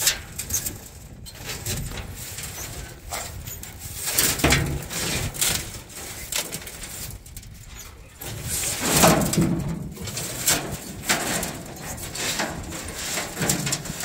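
Short straw hand broom sweeping the steel floor of a truck bed in irregular brushing strokes, with the loudest stretch about nine seconds in.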